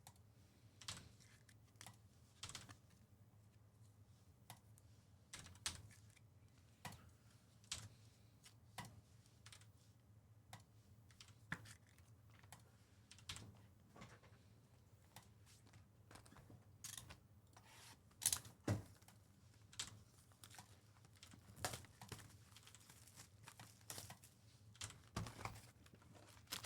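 Faint, irregular typing on a computer keyboard: scattered single key clicks over a low steady hum.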